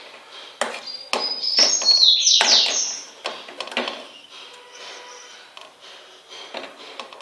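A few sharp knocks and clinks of a utensil against a cooking pan, with a brief high-pitched sliding squeal about two seconds in, followed by light clatter.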